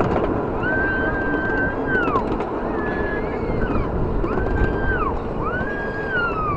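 Miniature ride-on train rolling along its track: a steady rumble of wheels on rail, with a series of high squeals, each rising, holding and dropping away over about a second, as the wheels grind through a curve.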